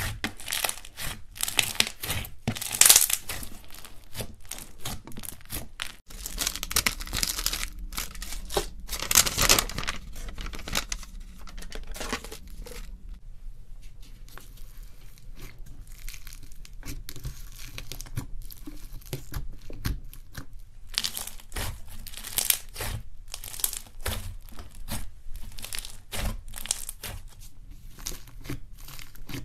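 Fingers poking, squeezing and pressing slime, giving a sticky crackling and popping of trapped air in irregular bursts. In the later part, slime packed with foam beads is pressed in a plastic tub, crackling and crunching; the sounds are quieter and sparser through the middle stretch.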